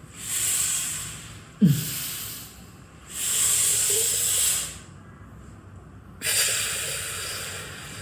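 A person breathing out hard four times, each breath a loud hiss about a second and a half long. The sharpest, loudest moment is a sudden sound with a short falling low tone about a second and a half in.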